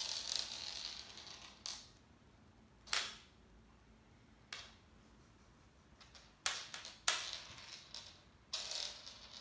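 A kitten's rattling bead toy batted around and skittering across a laminate floor: about seven short rattling bursts, the longest right at the start, each dying away quickly.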